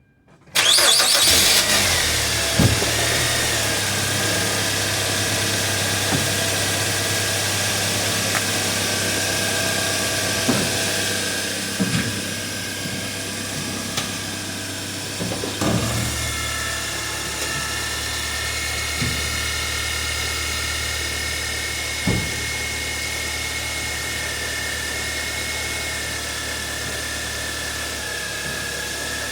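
Car running on the road with steady engine and road noise that starts suddenly about half a second in, broken by occasional short, sharp clunks from the front suspension over bumps, which the mechanic suspects come from a worn stabilizer bar (sway bar) link.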